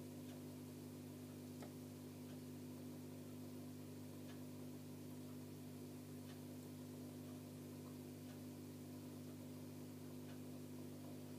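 A steady low hum with faint, irregular ticks every second or two.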